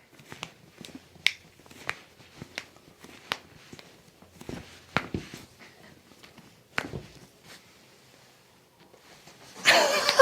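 Toe joints cracking under a chiropractor's adjustment: about ten sharp pops at uneven spacing over the first seven seconds. A louder, rushing burst follows near the end.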